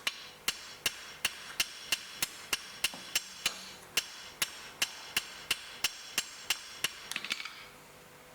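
Hand hammer striking a hot steel bar on an anvil, about three blows a second, each with a short metallic ring, tidying up the corners of a forged offset shoulder. Near the end a quick run of lighter taps, then the hammering stops.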